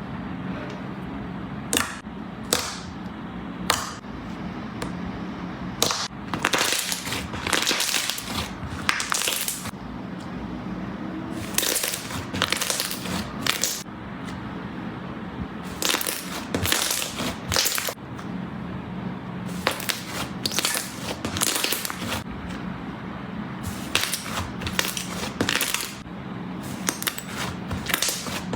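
Slime being squeezed and pressed by hand, giving short crunchy crackles in clusters about every second or so over a steady low hum.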